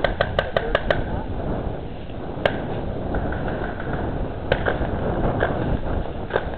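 Paintball markers firing: a quick string of sharp pops, about six in a second, at the start, then single shots every couple of seconds, over a steady low rumble.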